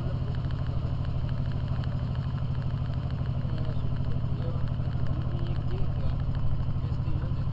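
A vehicle engine running steadily at an even speed, heard from on board while travelling.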